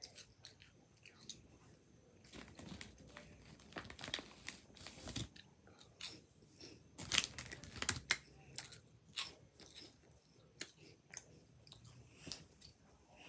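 A person chewing something crunchy close to the microphone: irregular crisp crunches, loudest a little past the middle.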